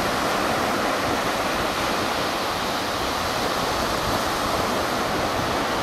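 Surf of a choppy Baltic Sea breaking and washing onto a sandy beach in strong wind: a steady, even rush of water.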